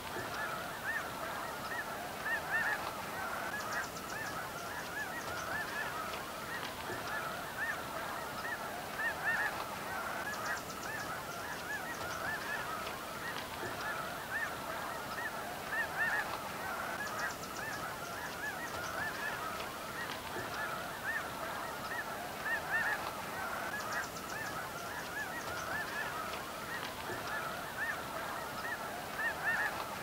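A huge flock of snow geese calling in flight: a dense, continuous chorus of countless overlapping honks.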